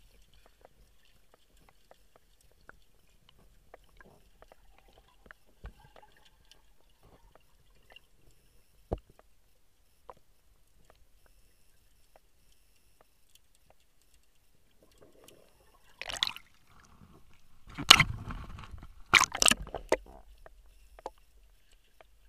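Muffled underwater recording: sparse faint clicks, then a cluster of loud knocks and rubbing noise against the camera from about 16 to 20 seconds in.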